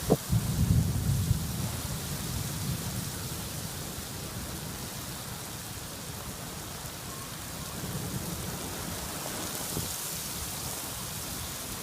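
Steady rain falling in a thunderstorm. Right at the start a sharp thunderclap, followed by a low rumble of thunder lasting about two seconds.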